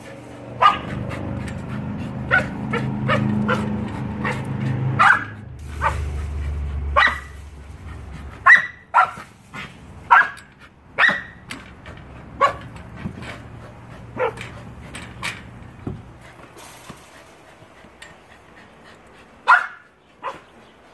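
Australian shepherd barking in short, sharp barks at irregular intervals while playing with a basketball, with a pause of a few seconds before two more barks near the end. A low rumble sits underneath for the first several seconds.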